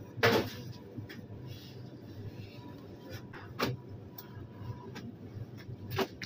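Kitchen handling noise on a stainless steel counter: a loud short clatter just after the start, then two sharp knocks, about 3.5 s and 6 s in, over a steady kitchen hum.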